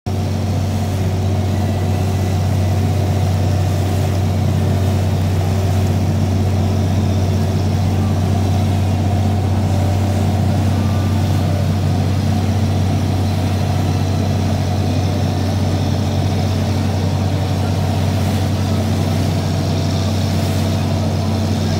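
Steady drone of a lobster boat's inboard engine running under way, a deep unbroken hum, with water rushing along the hull.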